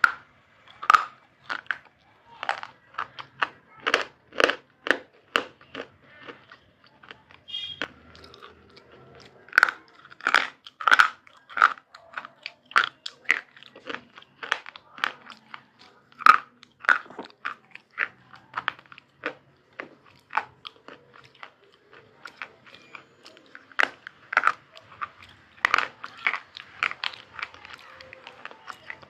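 Close-up crunching as a person bites and chews something hard and brittle, with sharp, irregular crunches about once or twice a second.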